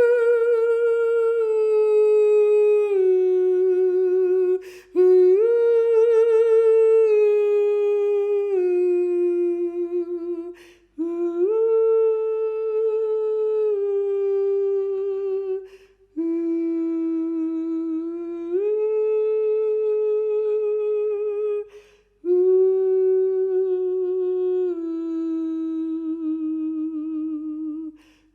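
Unaccompanied solo voice humming wordless, slow held notes with vibrato. The voice moves in about five long phrases, each stepping or gliding down between two or three pitches, with short breaths between the phrases.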